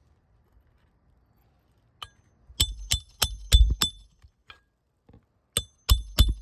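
A hammer striking a roof snake to drive roofing nails into an asphalt shingle: sharp metallic strikes with a ringing note. One strike about two seconds in, then a quick run of five, a short pause, and another run of about four near the end.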